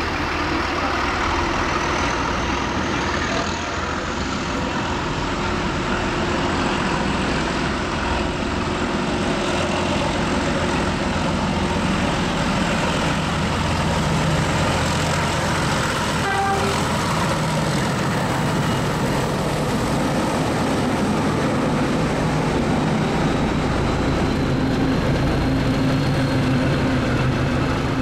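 Class 31 and Class 73 diesel locomotives, both with English Electric engines, working in multiple under power as they approach and pass: a heavy, steady engine drone that grows slightly louder, with a high whine rising in pitch over the first few seconds.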